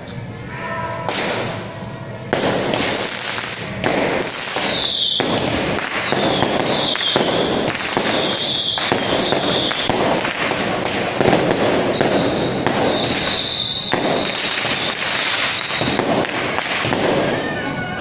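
A long string of firecrackers going off in a dense, rapid crackle that starts about two seconds in and keeps going. A high tone sounds on and off over it.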